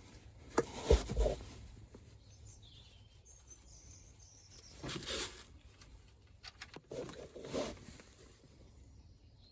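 Sump plug being unscrewed and pulled from an engine's oil pan: a sharp click and then a knock with a low thud about a second in, followed by a few short scrapes and handling noises.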